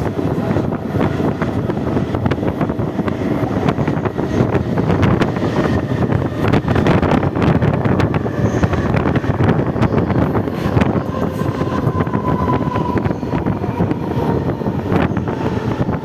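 Western Railway EMU suburban train running at speed: a steady rumble of steel wheels on rail with many quick clicks and clatters from the track, and wind buffeting the microphone. A faint high whine holds for a few seconds in the second half.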